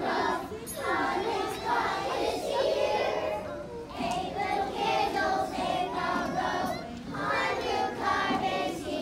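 A large group of young children singing together as a choir, in sung phrases of a couple of seconds with short breaks between lines.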